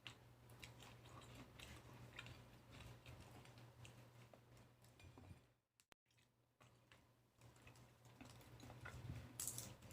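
Faint chewing of lychee, with soft wet mouth clicks and smacks. There is a brief break about halfway, and a few louder smacks near the end.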